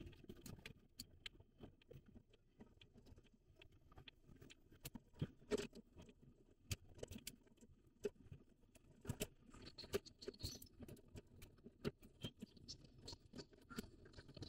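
Faint, irregular small clicks and ticks inside a moving car's cabin, over a faint low road rumble.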